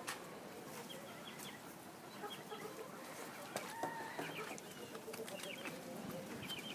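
Hens clucking quietly, a scatter of short calls and chirps from several birds, a little louder about halfway through.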